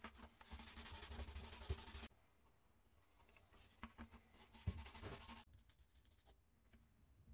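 Faint hand sanding of a small metal bicycle lamp body with folded abrasive paper. Quick scratchy rubbing strokes run for about two seconds and stop. Then come quieter, sparser rubs with one light knock in the middle.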